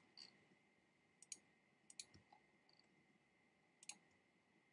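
Faint computer mouse clicks, scattered single clicks and quick pairs about every second or two, against near silence: pixels being clicked in one at a time.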